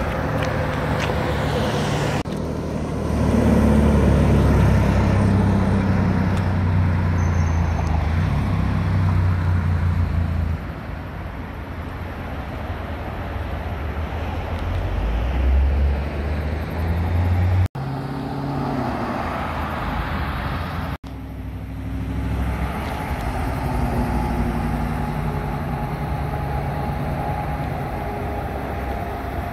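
Road vehicle engines running close by, with a heavy low engine drone loudest for several seconds in the first third and traffic noise throughout. The sound cuts out briefly twice, about two-thirds of the way through.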